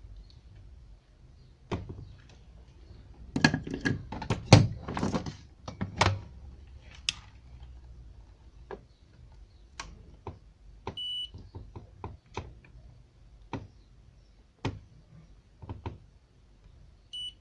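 Small tools and parts handled on an electronics workbench: scattered clicks and knocks, with a burst of clatter a few seconds in. A short electronic beep sounds twice, about eleven seconds in and again near the end.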